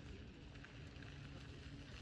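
Faint outdoor background: a low rumble on the microphone with a steady, distant engine hum.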